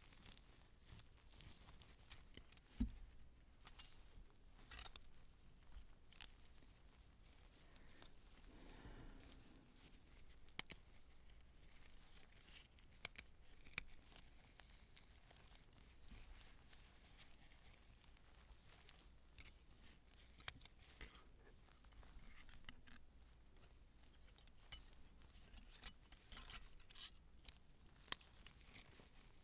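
Quiet, close-up handling of surgical instruments and materials: scattered light metallic clicks and crisp taps, a handful of sharper ones, over faint rustling.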